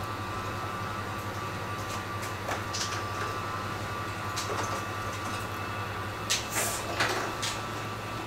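Hot air rework station blowing a steady stream of hot air over a smartphone motherboard's CPU to soften its glue for removal. A few short clicks sound over it, the loudest near the end.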